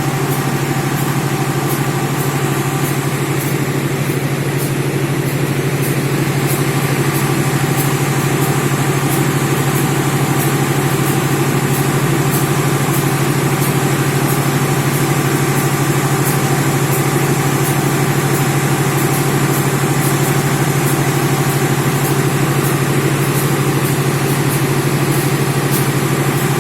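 Diesel generator set of a passenger-train power car running steadily at constant speed, a continuous low engine hum with a faint regular high ticking over it.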